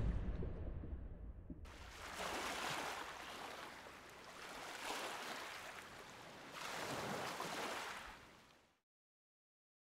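Sea waves washing: a soft rushing noise that swells and fades three times, about two seconds apart, then cuts off abruptly.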